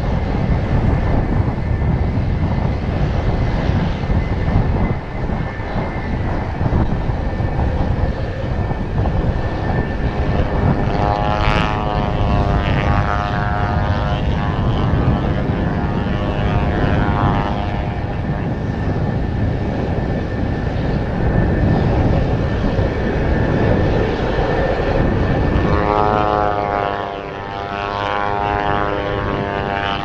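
Fuji T-7 trainer's turboprop engine and propeller running at power on its takeoff roll, with a thin steady whine and a droning tone that swells up twice, around twelve seconds in and again near the end. Heavy wind buffeting on the microphone rumbles underneath throughout.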